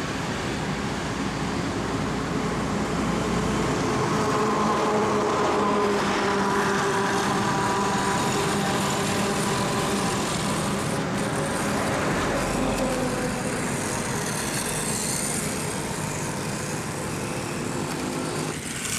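Steady engine noise of road traffic passing, with low rumble from wind on the microphone at times.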